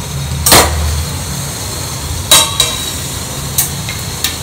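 Steel idli plate lifted out of the steamer with iron tongs and set down on the counter: a sharp metal clank about half a second in, another about two seconds in, and two lighter clinks near the end, over a steady low hum.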